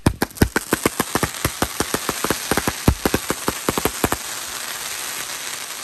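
A 500-gram consumer firework cake firing: a quick run of sharp cracks and pops, several a second, that after about four seconds thins into a steady crackling hiss.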